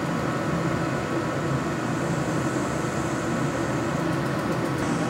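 Struers metallographic grinding machine running, its turntable spinning while a metal sample is held against the wet abrasive paper: a steady motor hum with a grinding hiss that fades about four seconds in.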